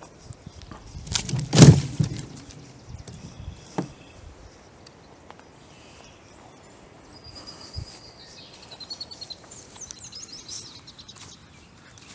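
Small birds chirping, mostly in the second half, after one loud, rough burst of noise about a second and a half in.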